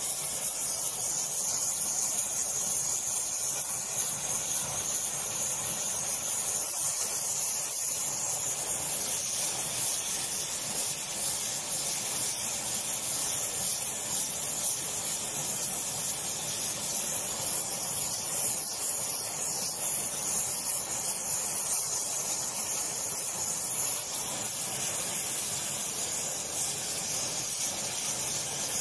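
Welding torch hissing steadily as it heats the body of a cast-iron Record 010 rebate plane, which is clamped bent slightly past flat against a straight steel bar so that it sets straight as it cools.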